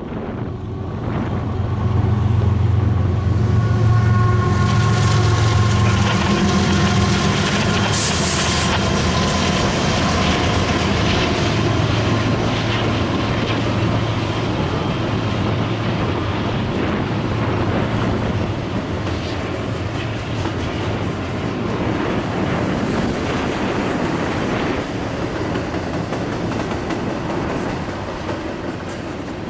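Norfolk Southern diesel locomotives pass with their engines running loud, a deep steady hum. Double-stack intermodal container cars follow, rolling by with a steady rumble and wheel clatter that fades slowly. A high thin squeal begins about eight seconds in.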